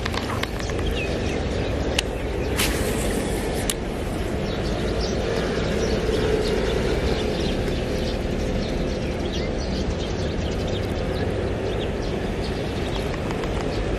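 Steady rumble of road traffic, with a few sharp clicks about two to four seconds in and faint bird chirps.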